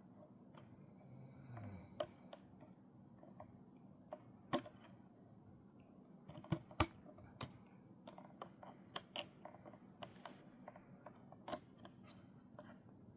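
Scattered, irregular soft clicks and taps, with a brief low sound that drops in pitch about a second in.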